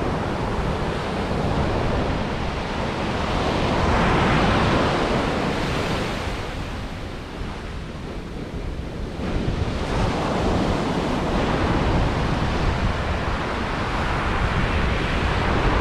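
Ocean surf washing onto the beach, with wind on the microphone. The wash swells about four seconds in, eases a few seconds later, then builds again.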